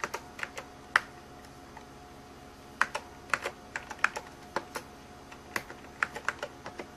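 Computer keyboard keys being typed, a short run of irregular clicks, a pause of about two seconds, then a denser run of keystrokes.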